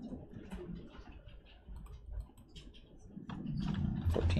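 Scattered light clicks of a computer mouse and keyboard. A low rumble sets in about three seconds in and is the loudest part.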